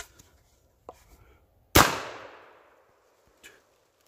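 A single shotgun shot about two seconds in, its report echoing away over about a second.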